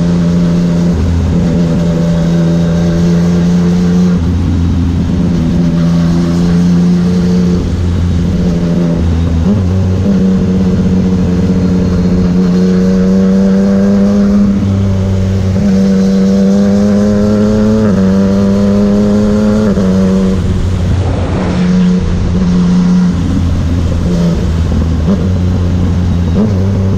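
Motorcycle engine running while riding. Its pitch climbs steadily several times in the middle as it accelerates, then drops back sharply at each gear change.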